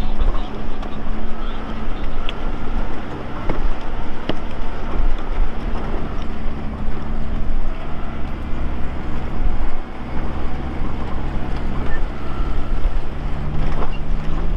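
Lifted Nissan Pathfinder R50's V6 engine running steadily under load while crawling a rocky trail, its pitch dropping slightly about two-thirds of the way through. A few sharp knocks are heard over it.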